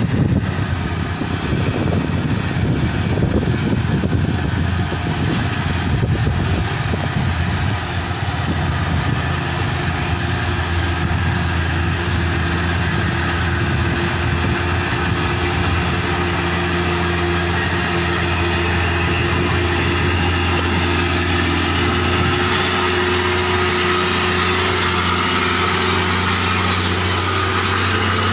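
Passing truck traffic: large diesel truck engines running under load. The sound is uneven for the first eight seconds or so, then settles into a steady low engine drone at constant revs, with rising tyre and road noise toward the end.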